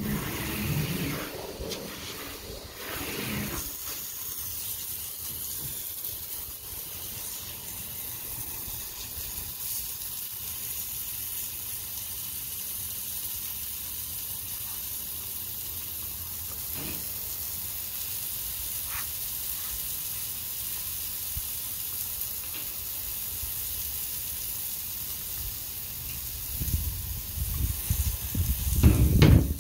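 Steady rain falling, a soft even hiss. There is louder low rumbling and rustling in the first few seconds and again near the end.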